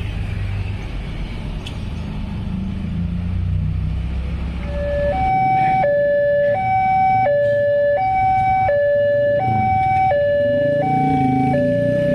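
Road traffic rumbling, then about five seconds in a railway level-crossing warning alarm starts: an electronic two-tone signal alternating between a lower and a higher tone about every 0.7 seconds. It warns that a train is approaching and the barriers are about to close.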